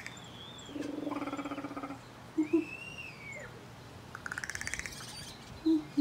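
A crow's quiet, varied calls at close range: a low rattling pulsed call about a second in, then a quick run of harsh buzzy notes near the end, with thin whistled glides above. Two short loud knocks come at about two and a half and five and a half seconds in.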